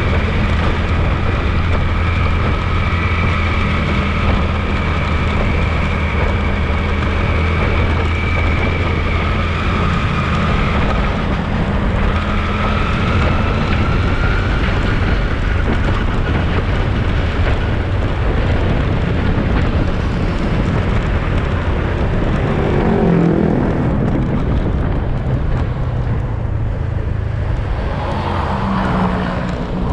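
Motorcycle running at road speed, heard from the bike itself, with a steady haze of road and wind noise. About two-thirds of the way through, the engine note bends down and back up as the bike's speed changes.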